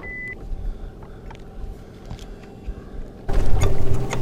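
Boat motor running with a steady hum, a short high beep near the start, then the sound jumps much louder about three seconds in.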